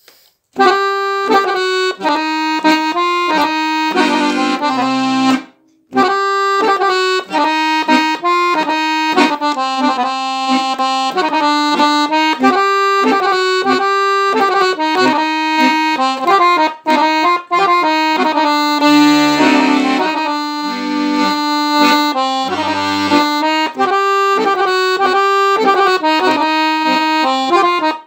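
Piano accordion played solo: a melody in reedy chords on the right-hand keyboard, with a few low bass notes now and then. The playing stops briefly about five seconds in, then carries on.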